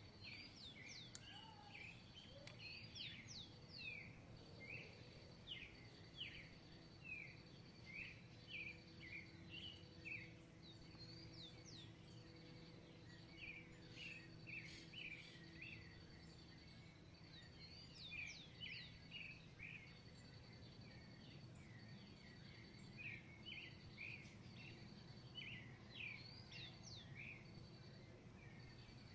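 Songbirds singing in bouts of quick, short, sliding notes, with brief pauses between the bouts. A steady, high, pulsing insect trill runs underneath.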